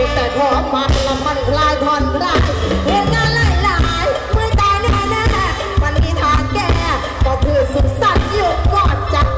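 Loud live band music through a stage PA: drums, bass and electric guitar keeping a steady beat, with a singer's voice over them.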